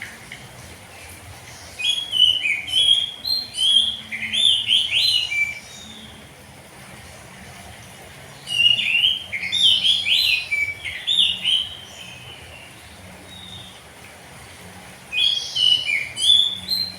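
Oriental magpie-robin (kacer) singing loud, varied whistled song in full voice, in three bouts of a few seconds each with short pauses between.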